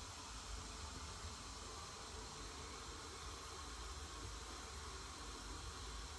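Steady faint hiss with a low hum underneath, unchanging throughout: background noise with no distinct event.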